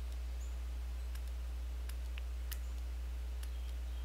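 Steady low hum from the recording setup, with faint, irregular clicks of a computer mouse scattered through it.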